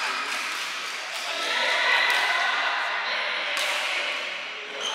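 Badminton hall sound: indistinct voices from the courts and the odd sharp racket hit on a shuttlecock, echoing in a large hall.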